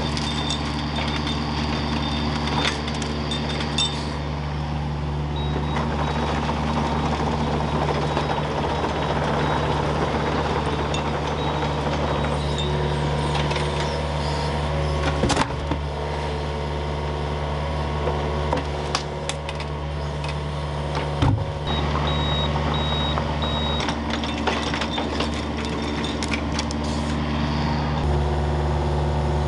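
A machine engine running steadily, with scattered knocks and clanks and a short run of beeps about 22 seconds in.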